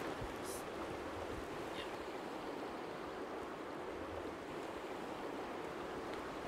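Shallow, rocky river flowing steadily over stones, an even rushing of water.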